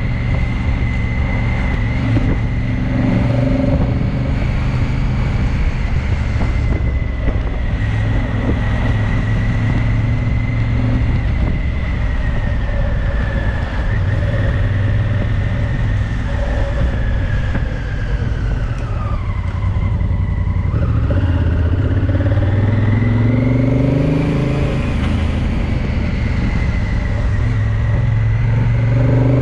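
Honda CRF1000L Africa Twin's parallel-twin engine running as the motorcycle rides along, with a high whine over the engine note. About two-thirds through, the whine drops as the bike slows, then the engine picks up and the whine rises again as it speeds up.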